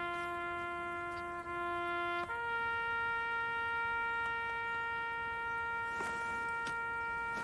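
A lone wind instrument holds one long steady note, then steps up to a higher note about two seconds in and holds it.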